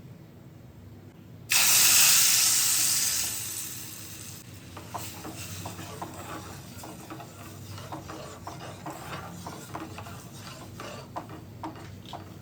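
Food going into hot oil in a pan: a sudden loud sizzle about a second and a half in that dies down over the next two seconds, then settles into steady crackling and spitting as it fries.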